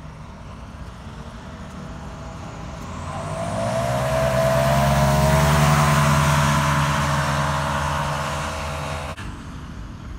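Paramotor engine and propeller running as it passes low and close. The steady pitched drone swells from faint to loud over the first four seconds, then cuts off abruptly about nine seconds in.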